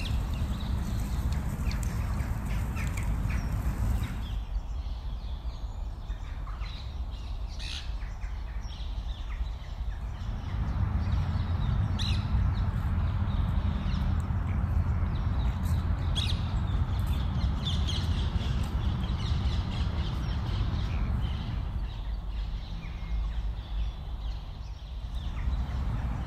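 Outdoor ambience: a steady low wind rumble on the microphone, with birds calling and chirping throughout. For the first four seconds a small wood fire crackles.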